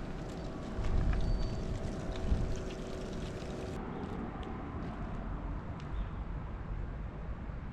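Wind rumbling on the microphone outdoors, with a faint steady hum of construction machinery that stops abruptly at a cut about four seconds in.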